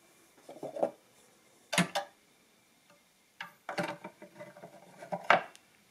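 Triumphator KA mechanical adding machine handled and set down on a wooden table: a series of clunks and clicks, the sharpest knocks about two seconds in and near the end.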